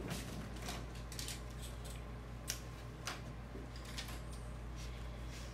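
Quiet classroom room tone: a steady low hum with scattered light clicks and taps, the sound of students working at their desks.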